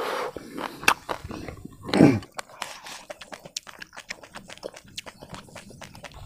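Close-miked mouth sounds of eating: chewing and wet lip-smacking, with many small clicks. About two seconds in comes one louder short sound that falls in pitch.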